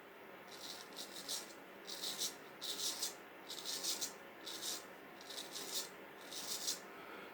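Straight razor worked in short, hissing back-and-forth sharpening strokes, about eight of them at roughly one a second.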